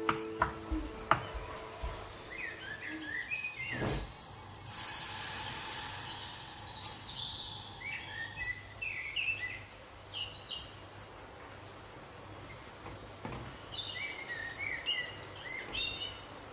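A knife chopping chocolate on a wooden cutting board, a few sharp knocks in the first second, then birds chirping in short bursts in the background. A thump about four seconds in, followed by a hiss lasting a couple of seconds.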